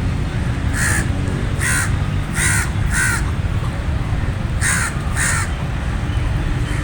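A raven cawing: four short harsh caws in quick succession, then after a pause two more, over a steady low rumble.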